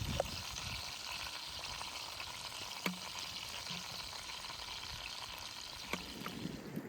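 Steak sizzling in a pan over a wood fire, a steady hiss with two sharp ticks, about three and six seconds in.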